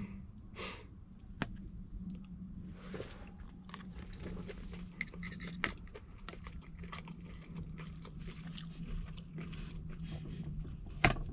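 A person chewing and eating food close to the microphone, with small clicks and scrapes of cutlery and a sharp click near the end, over a steady low hum.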